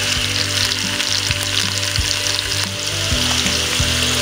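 Raw chicken pieces sizzling in hot butter in an Instant Pot's stainless steel inner pot on the sauté setting: a steady frying hiss.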